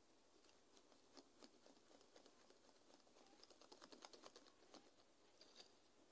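Faint soft clicks and pats of a hand mixing flour into wet dough in a glass bowl, the ticks coming thickest a little past the middle.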